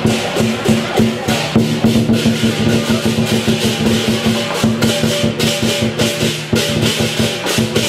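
Lion dance percussion playing a fast, steady beat: drum strokes under continuous crashing cymbals.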